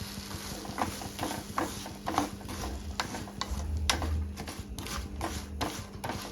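Metal spoon knocking and scraping against a kadai in irregular clicks while stirring jaggery melting in a little water into syrup, over a low steady hum.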